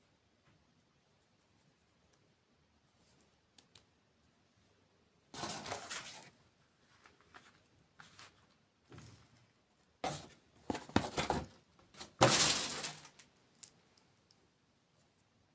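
Close-miked eating sounds: after a few seconds of near quiet with faint clicks, a series of crunchy bites and chews of a dessert, the loudest near the end.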